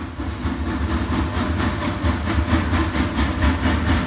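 Steam locomotive chuffing in a fast, even rhythm of about five beats a second, swelling up over the first half second and then holding steady.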